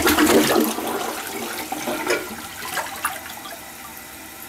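American Standard Optum VorMax toilet's first flush: a loud rush of water that fades over about three seconds to a steady, quieter hiss. The flush is not too impressive, since the toilet has yet to be primed by several flushes.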